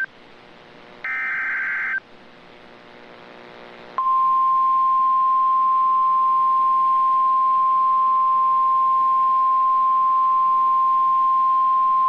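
NOAA Weather Radio EAS activation. About a second in comes the last of the SAME header data bursts, a one-second buzzy warble of digital tones. About four seconds in, the steady 1050 Hz warning alarm tone starts and holds, marking a tornado warning. Faint radio hiss fills the gap between them.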